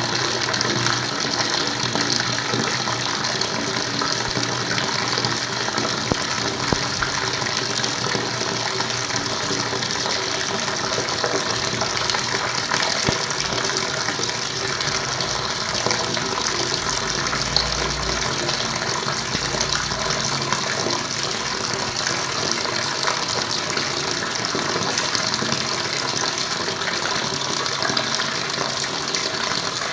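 Flowing water, a steady, unbroken rush of running water.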